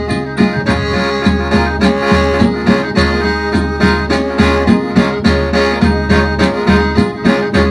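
Khaen, the Lao-Isan bamboo free-reed mouth organ, playing a dance tune over its held drone, with a steady low drum beat.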